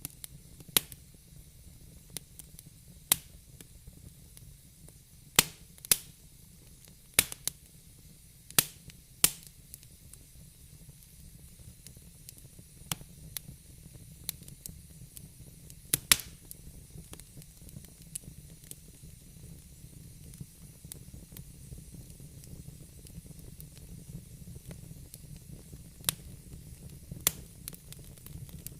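Fire in a fireplace crackling: irregular sharp pops, bunched in the first half with a loud one just past the middle and a couple near the end, over a low steady rumble and soft hiss.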